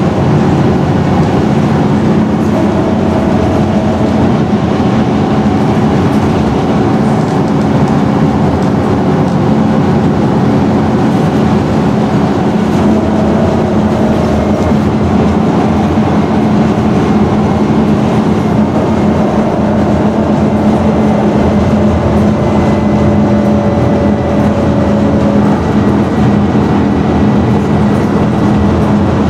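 Scania N113DRB double-decker bus, heard from on board, its rear-mounted 11-litre six-cylinder diesel running steadily with a constant drone and body rumble.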